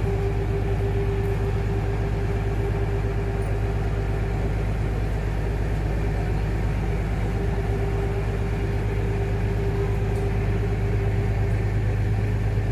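Ferry boat's engine running steadily: a low drone with a steady hum above it.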